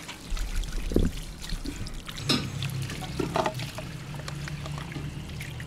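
Water from a garden hose pouring and trickling over raw mutton pieces in a steel bowl as they are rinsed by hand, with a few sharp knocks and clinks against the metal.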